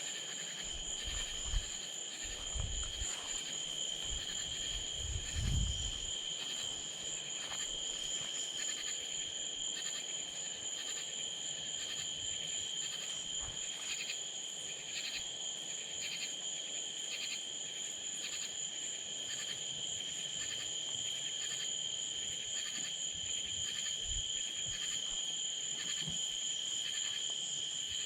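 Night insects, crickets or katydids, trilling steadily at a high pitch, with a fainter chirp repeating in a regular rhythm. A few dull low thumps sound in the first six seconds.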